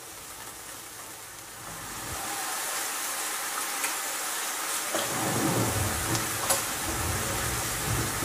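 Diced onions sizzling in hot oil in a frying pan. The sizzle grows louder about two seconds in, with a few sharp pops and some low rumbling later on.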